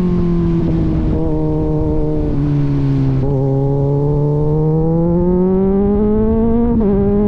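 Kawasaki Z900 inline-four through an aftermarket AR exhaust, its note falling as the bike eases off for the first few seconds, then climbing steadily as it accelerates, with a quick drop in pitch near the end like a gear change.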